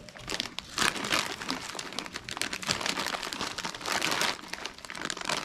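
Foil chip bag of Cheetos crinkling irregularly as a hand handles it and rummages inside for chips.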